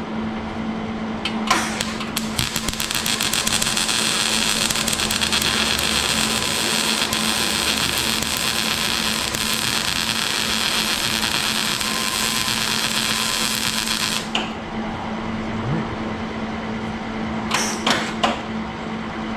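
MIG welding arc from a Millermatic 130 wire-feed welder, crackling and sizzling steadily for about twelve seconds after a stuttering start about a second and a half in, then cutting off sharply. It is a test weld showing the welder working again with its replaced contactor. A steady low hum runs underneath.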